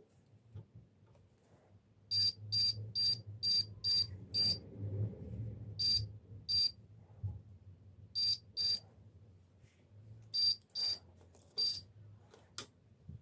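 Short, high-pitched electronic beeps from a test-bench beeper, about a dozen in all. They come as a quick run of six, then in pairs and singly, over a faint low hum, with a sharp click near the end.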